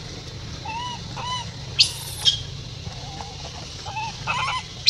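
Infant macaque crying in short, arched coo calls, repeated several times. Two brief shrill squeaks stand out about two seconds in.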